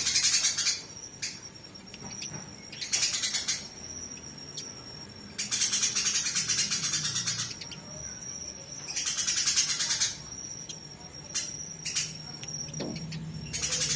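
Eurasian tree sparrows chattering harshly in their fighting calls: five bursts of rapid chatter, half a second to two seconds each, with a faint steady high tone in the gaps between them.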